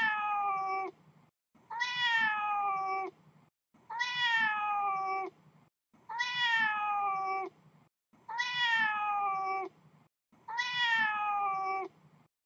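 A cat meowing, each meow about a second and a half long, rising then falling in pitch. The same meow repeats identically about every two seconds, six times, like a looped recording.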